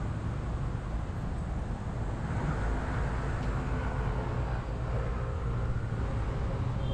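Steady low rumble from riding a bicycle: wind on the camera microphone mixed with road traffic, with a faint pitched whine in the middle.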